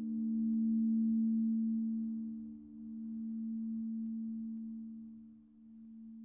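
Church bells' lingering hum after the ringing has stopped: two low steady tones slowly dying away, swelling and fading about every three seconds, with no further clapper strikes.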